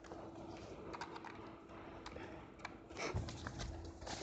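Scattered light clicks and taps over a faint steady hum, with a louder low bump about three seconds in.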